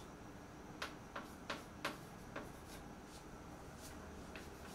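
Chalk tapping and clicking against a blackboard: about seven faint, sharp, irregular clicks in the first four seconds, over a low room hiss.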